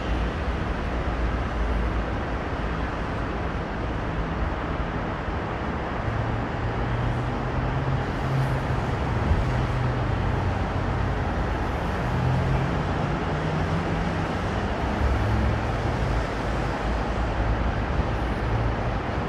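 Steady road traffic from a busy multi-lane road, cars and vans passing, with a low engine hum that comes and goes.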